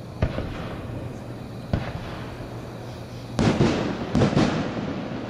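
Consumer 1.3G aerial fireworks: two sharp thumps about a second and a half apart, then a quick cluster of several loud bangs and pops about three and a half seconds in, as a shell bursts into white stars.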